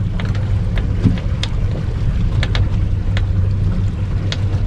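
Suzuki outboard motor idling with the boat moving slowly: a steady low hum. Irregular short sharp knocks or splashes sound every half second or so over it.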